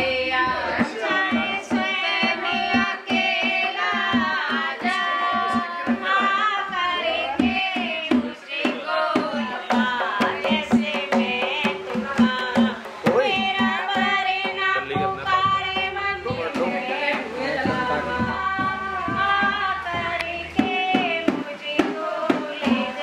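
Background music: an Indian song track with hand-drum percussion under a bending melodic line, playing steadily throughout.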